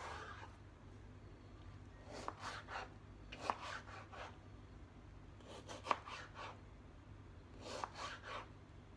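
Kitchen knife slicing and dicing a tomato on a cutting board: the blade taps the board in about five short bursts of quick strokes. A low steady hum sits underneath.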